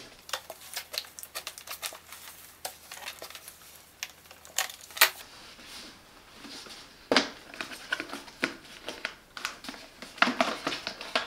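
Light clicks and taps of small screws and the plastic side cover of a small inverter generator being handled as the cover is worked loose. There is a quick run of clicks in the first few seconds, a sharper knock partway through, and a few more clicks near the end.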